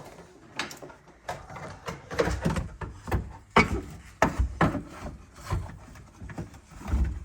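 Irregular knocks, clicks and clunks as a Dana 300 twin-stick shifter is set back into its place in the floor and handled into position.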